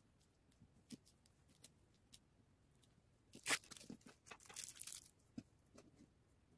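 A few light ticks of cotton macrame cord being handled, then faint rustling and crinkling from about three and a half to five seconds in, as hands spread out and flatten the cord coaster on a clear plastic sheet.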